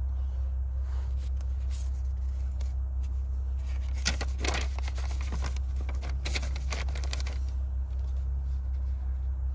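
Paper rustling and crackling as owner's manuals are shuffled and a folded paper window sticker is opened out, loudest in two spells about four and six seconds in. A steady low hum runs underneath.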